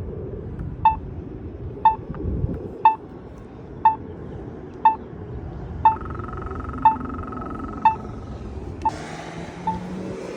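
Polara accessible pedestrian signal push-button ticking out its locator tone: a short beep about once a second, marking the waiting (don't walk) phase after the countdown. Steady traffic rumble runs underneath, and a broad hiss of wind or a passing vehicle comes in near the end.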